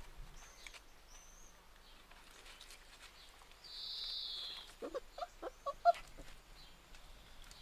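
Labrador puppies giving a handful of short, high whimpers and squeaks about five to six seconds in. About a second before that comes a high, steady buzz lasting roughly a second.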